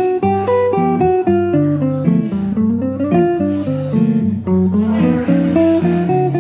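Archtop hollow-body electric guitar played fingerstyle through an amp, chords with moving bass notes and melody lines on top.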